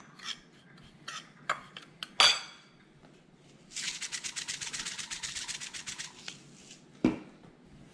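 A metal fork clinks and scrapes against a ceramic plate as dry fish-fry breading is mixed. Then come about two and a half seconds of quick rhythmic rattling as more seasoning is shaken onto the breading, and a sharp knock near the end.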